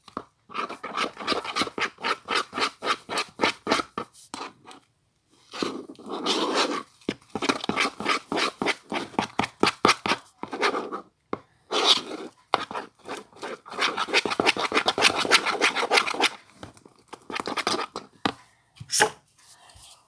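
Slime mixture of glue, shampoo and scent being stirred in a bowl, a utensil scraping round it in quick repeated strokes, about four or five a second, in several spells with short pauses between.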